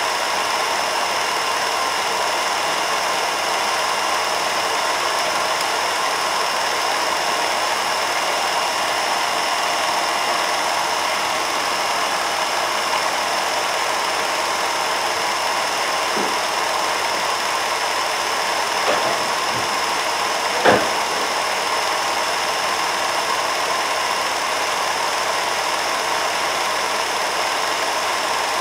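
Film projector running: a steady mechanical whir with a faint high whine, and one sharp click about three-quarters of the way through.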